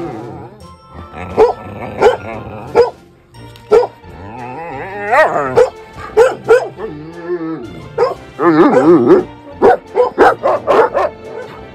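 Dog barking in short, sharp bursts, with a drawn-out wavering call about five seconds in and a quick run of barks near the end, over background music.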